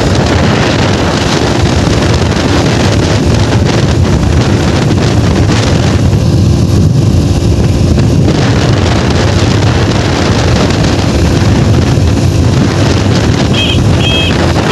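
Wind rushing over the microphone of a motorcycle riding at speed, with the small engine's steady drone underneath. A few short high beeps sound near the end.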